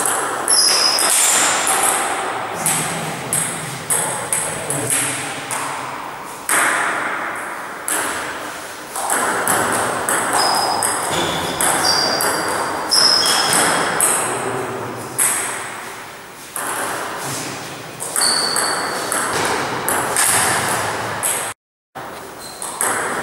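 Table tennis rally: the ball clicks in quick alternation off the paddles and the table, each hit echoing in a large hall, with a few short high squeaks. The sound cuts out for a moment near the end.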